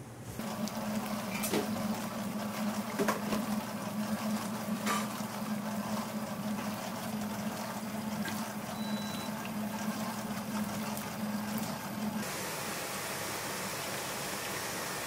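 Stand mixer motor running with a steady hum as its whisk beats batter in a steel bowl, with a few sharp clicks. About twelve seconds in the hum stops and milk pours in a steady stream onto egg yolks in a steel bowl, a steady hiss.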